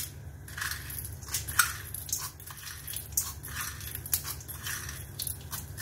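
Mustard seeds crackling and popping in hot oil in a steel kadai, irregular sharp pops throughout, as chana dal is spooned from a small steel bowl into the oil with light clinks of the steel spoon.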